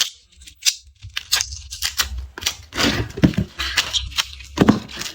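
Garlic skins being cracked and peeled: a run of crisp clicks and crackles with papery tearing and rustling, loudest about three seconds in and again near the end.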